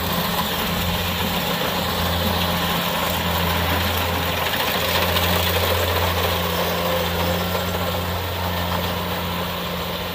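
Kubota DC70 Plus combine harvester cutting rice, its diesel engine running loud and steady under harvesting load with an even hum.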